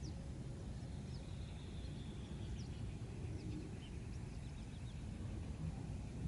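Wind rumbling steadily on the microphone, with faint, scattered high bird chirps over it.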